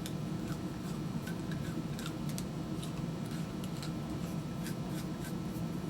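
Scattered light ticks and scratches of hand leatherwork: leather and tools being handled and worked, over a steady low hum.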